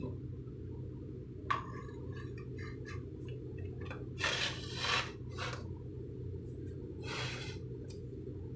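Glass tumblers and a plate being set down and shifted on a wooden counter. There is a click about a second and a half in, then two short scraping sounds, over a steady low hum.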